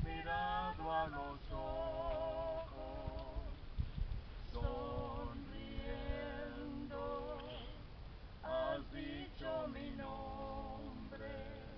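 A single voice singing slow, held notes with vibrato, unaccompanied, with short pauses between phrases and a low rumble underneath.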